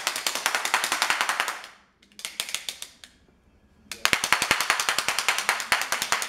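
Handheld toy noisemaker giving a rapid train of loud pops, about ten a second. The popping stops just before two seconds in, comes back in a short run, then starts again at about four seconds.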